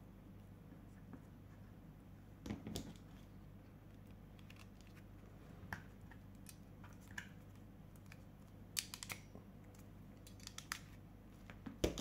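Faint, scattered clicks and light rustling from hands working a stripped copper wire into a red 10 mm² wire end ferrule, with a few sharper clicks spread through.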